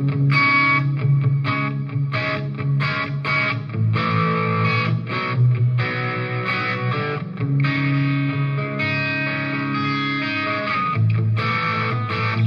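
Electric guitar played through an M-Vave Tank G multi-effects unit on a distorted tone: riffs and chords chopped by many short stops.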